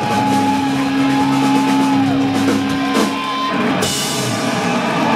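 Live rock band (electric guitar, bass and drum kit) playing the closing bars of a song: a held low note rings over the drums, and cymbals crash about four seconds in.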